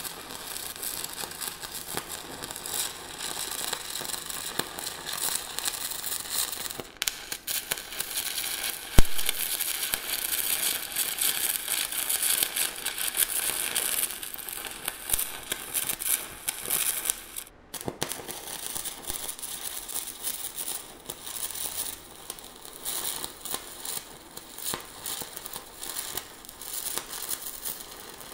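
Stick-welding arc of a 3/32 in. E4043 aluminum electrode running at about 75 amps, a steady dense crackle and hiss. It cuts out briefly twice, with one sharp click about nine seconds in.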